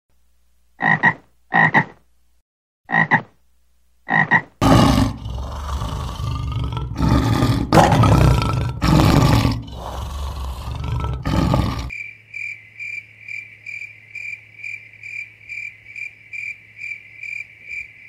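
Four short, sharp animal calls, then a lion roaring loudly several times for about seven seconds. After that, a steady high-pitched chirping, evenly pulsing about two and a half times a second.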